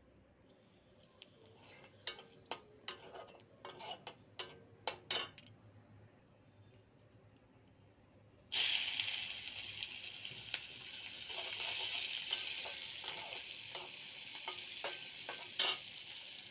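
Hot cooking oil in a pan: a run of sharp clicks and pops a couple of seconds in, then from about halfway a sudden loud sizzling as sliced onions fry in the oil, with a metal spatula clicking and scraping against the pan as they are stirred.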